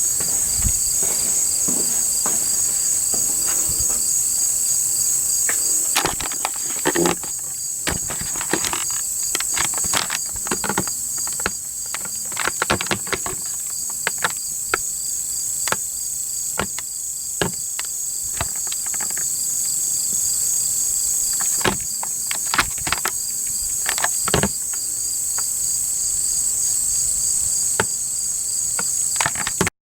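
Steady, shrill chorus of crickets and other night insects in a pulsing trill, with scattered sharp clicks and knocks throughout.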